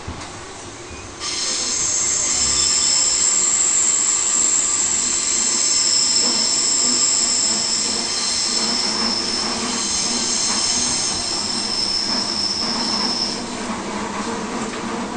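Electric suburban train's wheels squealing, heard from inside the carriage: several high-pitched steady tones start suddenly about a second in and hold for about twelve seconds before fading, over the steady rumble of the moving train.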